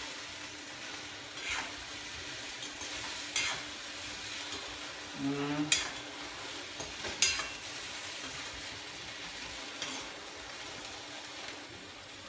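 Okra sizzling as it fries in a kadai, with a spatula stirring it and scraping and clinking against the pan every second or two.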